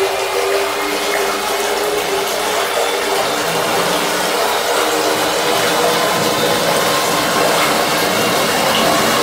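Liquid churning and splashing in a toothpaste mixing tank as its high-shear homogenizer head and scraper agitator spin, with a steady machine hum underneath.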